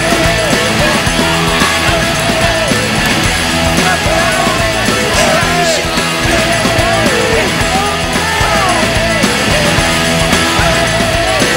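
Loud rock music, dense and steady, in a punk-rock style.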